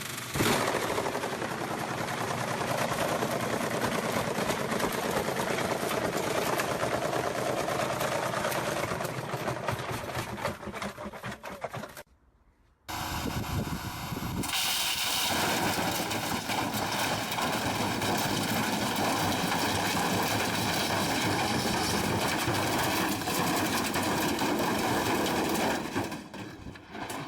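Washing machine in a violent spin, banging and rattling with rapid, continuous knocking. The noise cuts off about twelve seconds in and starts again a second or so later, then fades out near the end.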